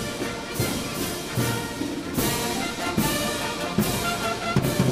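Military brass band playing: trumpets and low brass sounding together over cymbal crashes that come roughly every second.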